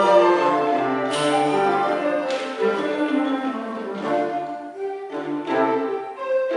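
Recorder ensemble playing in several parts, from small recorders down to square bass recorders, in sustained notes and chords.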